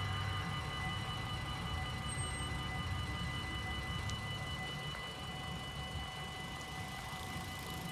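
Dutch railway level-crossing warning bells ringing steadily while the barrier arms lower: the signal that a train is approaching. A low rumble runs underneath.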